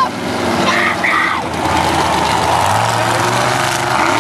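Monster truck engines running loudly as the trucks drive on a dirt track, with a steady low engine note holding through the second half.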